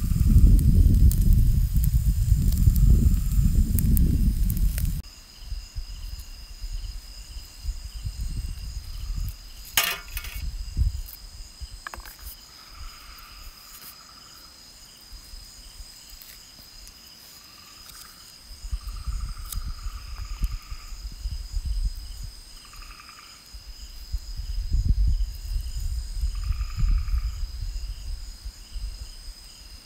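Crickets chirring steadily at night, joined every few seconds by short repeated calls from another animal. A low rumble is the loudest sound in the first five seconds and returns later, and there is one sharp click near the middle.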